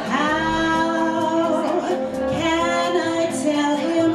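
Woman singing wordless held notes into a microphone over a bossa nova backing track, one long note about a second and a half long and then shorter phrases.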